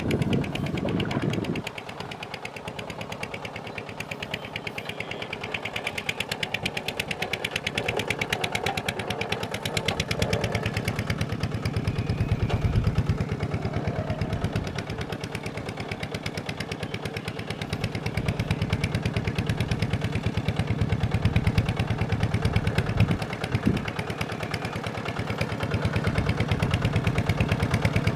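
Diesel engine of a farm machine running steadily, with a fast, even knocking beat.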